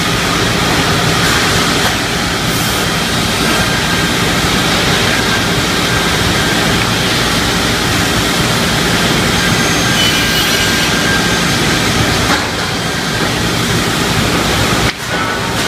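Pallet-board crosscut saw machine running: a loud, steady mechanical noise, with a brief drop near the end.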